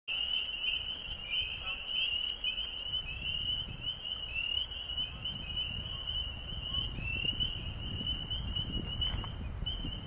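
A chorus of frogs calling from a marsh: many short, slightly rising, high calls overlapping in a continuous run, over a low rumble.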